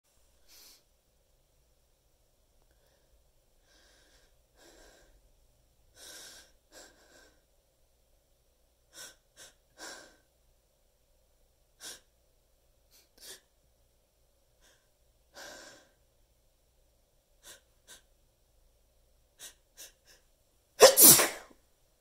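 A person's sneeze buildup: a long run of short, faint, breathy catches of breath, then a single loud sneeze near the end.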